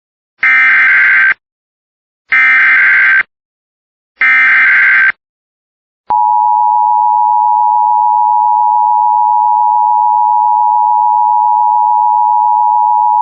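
Emergency Alert System header: three short bursts of warbling digital SAME data, about two seconds apart, followed about six seconds in by a long, steady, single-pitched attention tone that opens a weather warning broadcast.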